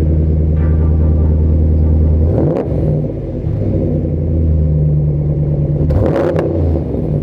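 Dodge Ram 1500's Hemi V8 idling through a newly fitted Aero Exhaust muffler, blipped twice, about two seconds in and again about six seconds in.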